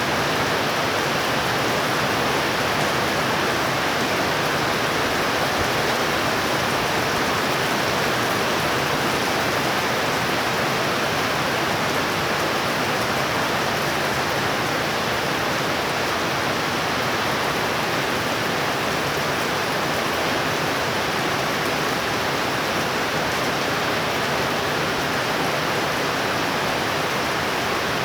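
Heavy thunderstorm rain falling steadily, an even, unbroken rush that does not let up.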